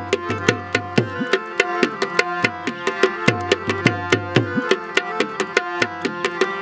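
Instrumental interlude of a Balochi ghazal: a harmonium holds steady chords while a dholak plays a brisk rhythm of several strokes a second. Some of the dholak's low bass-head strokes slide downward in pitch.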